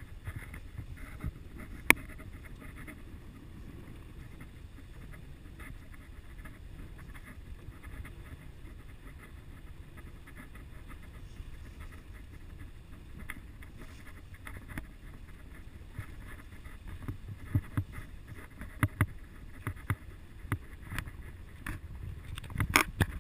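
Truck driving slowly through mud on a rain-soaked dirt road, heard from inside the cab: a low steady rumble with scattered knocks and splashes, one sharp knock about two seconds in and many more thumps in the last several seconds.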